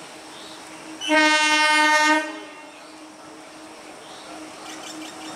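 Indian Railways EMU local train sounding its horn in one blast of a little over a second, starting about a second in. Around it, a steady low hum and the faint rail noise of the approaching train, which grows a little near the end.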